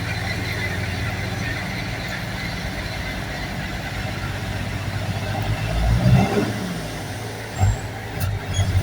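A vehicle motor running steadily, with a couple of louder surges about six seconds in and again near the end.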